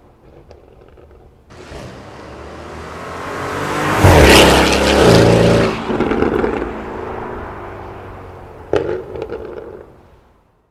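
Porsche Cayenne Turbo E-Hybrid's twin-turbo V8, breathing through an aftermarket catted downpipe, accelerating hard. The engine note builds over a couple of seconds, is loudest about four to five seconds in, then falls away in pitch and level, with a brief sharp burst about nine seconds in.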